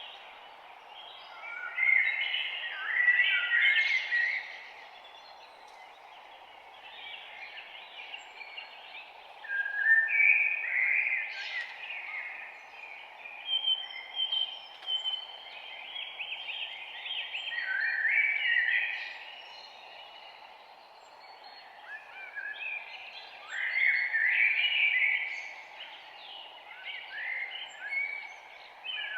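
Songbirds chirping and warbling in short phrases every few seconds, over a steady low hiss of background noise.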